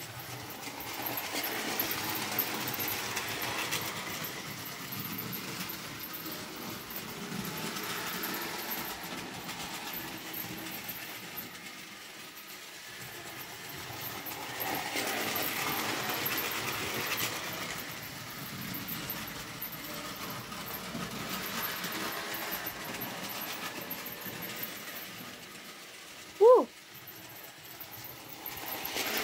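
Model railway locomotive running around the layout and pulling its wagons, the small motor and wheels rattling over the track, growing louder and softer in waves as the train passes near and away. A short, loud squeak sounds near the end.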